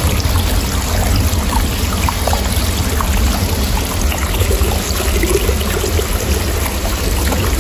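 Water running steadily from a natural spring, a close, continuous trickling and splashing.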